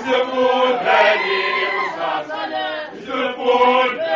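Isicathamiya male a cappella choir singing in close harmony, several voices moving together in a chant-like phrase.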